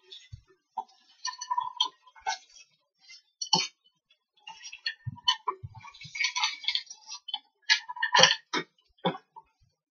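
Metal spoon stirring and scraping chicken and vegetables in a frying pan, with irregular clicks and clinks against the pan.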